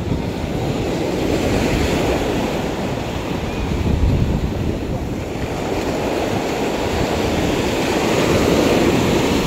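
Ocean surf breaking and washing up the shore, swelling louder as waves come in, with wind rumbling on the microphone.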